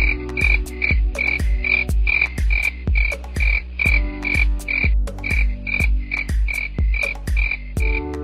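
Intro music with a steady electronic beat: a deep kick and a short, high chirping sample, each repeating about two and a half times a second.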